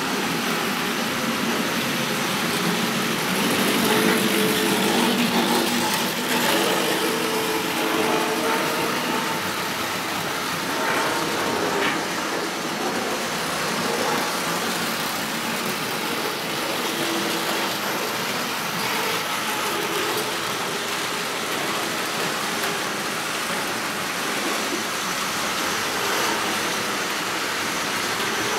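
00 gauge model trains running on the layout track: a steady whirring rattle of wheels on rail and electric motors that keeps up without a break.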